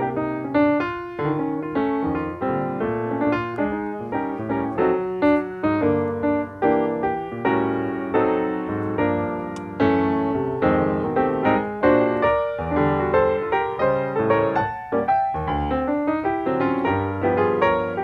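Piano music, a steady run of notes and chords.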